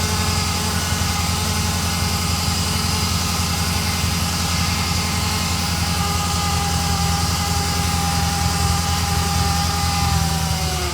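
Ferrari Mondial 3.2's V8 engine idling steadily, with a thin buzzing tone over it that slides slightly lower in pitch near the end. The buzz comes on with oil pressure after a cold start, and the owner finds it loudest with a stethoscope on the braided oil hoses going to the fan.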